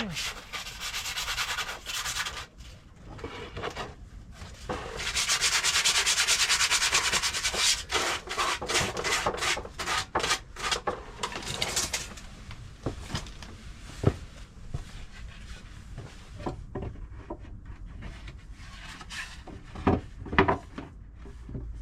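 Sanding on wood: spells of steady scratchy rubbing, the longest from about five to eight seconds in, then quicker separate strokes and scattered knocks, with one sharp knock about fourteen seconds in.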